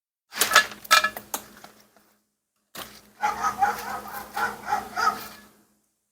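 Metal engine parts and tools being handled: a quick run of clicks and knocks, then about three seconds of rubbing and knocking as the timing cover comes off the engine.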